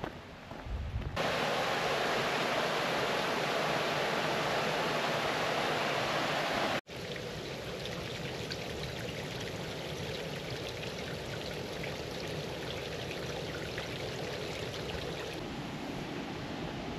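Steady rush of running water, cutting in abruptly about a second in; near seven seconds it cuts to a quieter, steadier stretch of running water with faint ticks.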